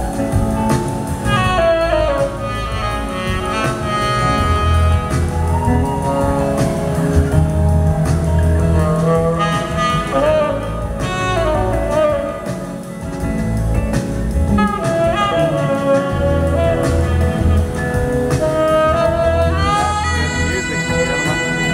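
Live band performance, with a saxophone solo of sustained, bending notes over electric guitar and a steady bass line.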